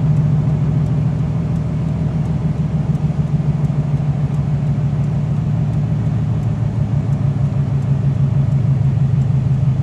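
A car cabin drones at highway speed, a steady low engine and tyre hum over road noise. The hum drops slightly in pitch near the end as the car eases off.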